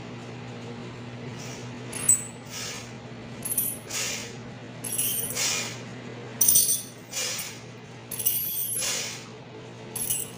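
Ultrasonic dental scaler working along the teeth to chip off tartar, heard as short, irregular hissing, scratchy bursts from about two seconds in, over a steady low hum.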